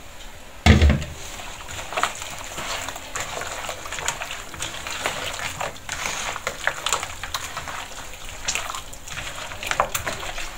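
Bare hands squelching and mixing halved raw quail in a wet tomato-and-capsicum marinade in a plastic bowl, a steady run of wet squishes and little clicks. A single thump comes about a second in.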